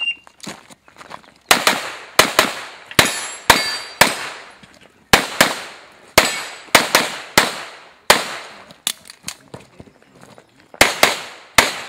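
Electronic shot timer giving its short high start beep, then a handgun fired in rapid strings: quick pairs of shots with short pauses between them, each shot ringing out with an echo.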